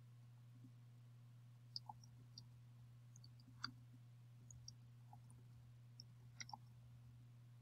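Near silence: faint, scattered clicks of computer keyboard keys being typed, over a steady low electrical hum.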